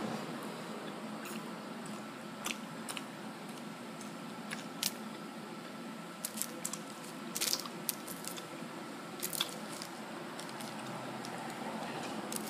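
A person chewing and biting into a burger filled with French fries, with scattered crisp crunching clicks.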